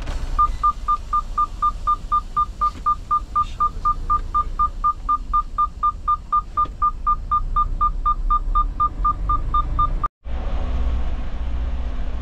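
Rapid electronic beeping from a warning beeper in a semi-truck, about four short high beeps a second, over the steady deep rumble of the truck's diesel engine. The beeping cuts off suddenly about ten seconds in, and the engine rumble carries on.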